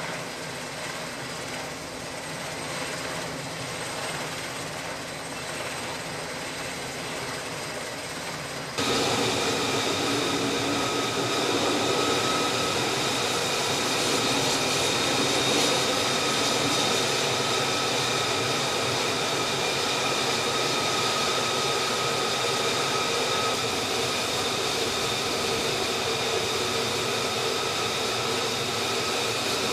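F-35 fighter's Pratt & Whitney F135 jet engine running on deck as the jet taxis: a steady rush with a high, even turbine whine, abruptly louder from about nine seconds in.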